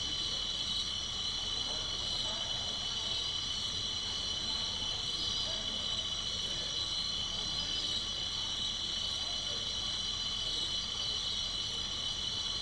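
Steady high-pitched chorus of night insects, unchanging throughout, over a low, even rumble.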